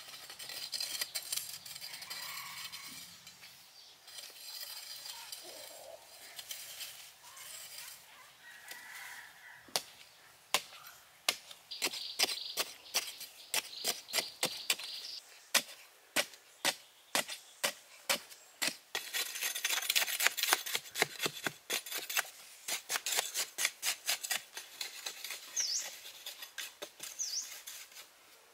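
A long-handled digging tool chopping into sandy soil: scraping at first, then a long run of sharp strikes from about ten seconds in, quickening to about two a second near the end.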